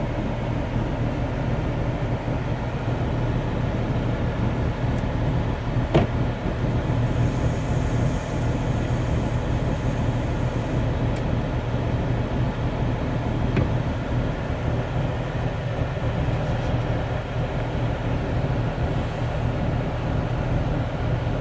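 Semi-truck's diesel engine idling, a steady low hum heard from inside the cab, with the hiss of rain on the truck. A single sharp click comes about six seconds in.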